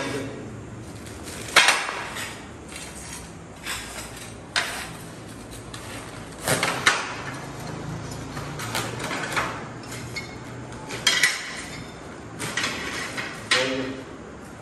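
Loose ceramic tile offcuts clinking and clattering against each other as they are handled and packed into a paper cement bag, about ten sharp, irregularly spaced clinks.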